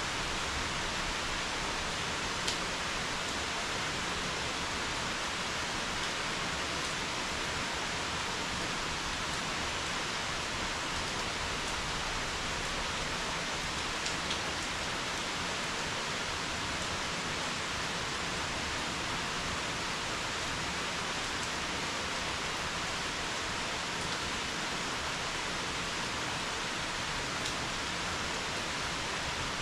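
Steady summer rain falling, an even hiss, with a few faint sharp ticks, the clearest about two seconds in.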